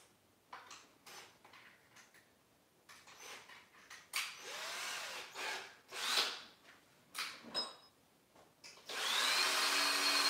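Cordless drill spinning a wire brush inside the hosel of an iron club head, scouring out residue and oxidation. It runs in several short bursts, the longest and loudest near the end.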